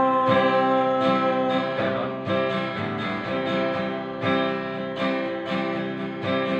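Acoustic guitar strummed in a steady rhythm, about one strum every two-thirds of a second, in an instrumental break of a song.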